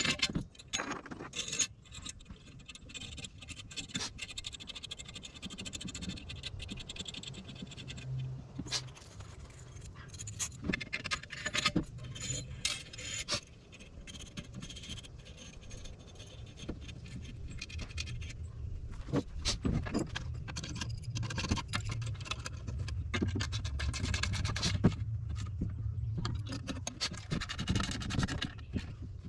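Hand work with bolt hardware on a plastic traction board: 3/8-inch bolts, fender washers and nuts scraping, clicking and clinking as they are fitted through the board's holes. A steady low rumble runs underneath.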